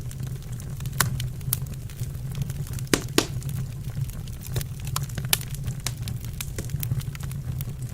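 Wood fire in a fireplace crackling: irregular sharp pops and snaps, two stronger pops close together about three seconds in, over a steady low rumble.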